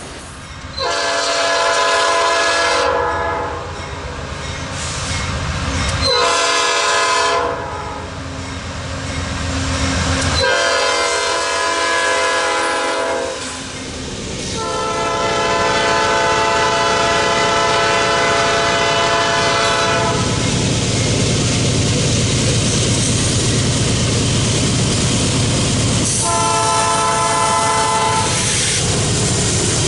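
Nathan Airchime P5 five-chime train horn sounding five times: two blasts of a few seconds with a short one between, then a long blast held for about five seconds. After that comes the steady rumble and clatter of the passing train, with a short horn blast near the end.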